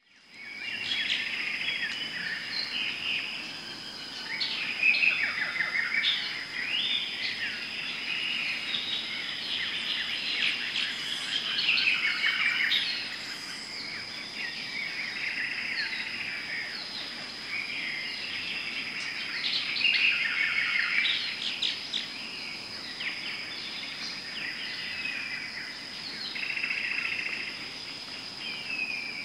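Many birds chirping and calling in overlapping bouts over a steady, high-pitched insect drone: a forest-style dawn chorus ambience.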